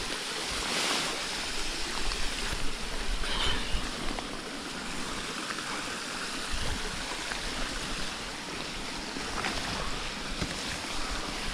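Steady rush of a mountain stream and small waterfall, with occasional rustling of a bivvy bag being climbed into.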